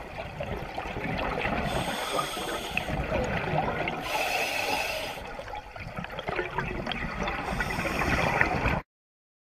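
Scuba diver breathing through a regulator underwater: three rushes of exhaled bubbles about three seconds apart, with gurgling between them, then the sound cuts off suddenly near the end.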